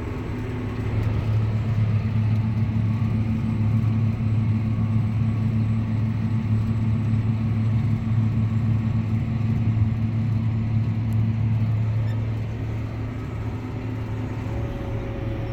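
Tractor engine running steadily under load while pulling a subsoiler, a low, even hum. It gets louder about a second in and eases off slightly near the end.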